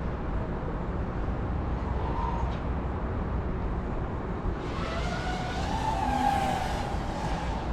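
FPV racing drone's motors and propellers whining over a steady low wind rumble, swelling to a louder, wavering whine for about three seconds near the end.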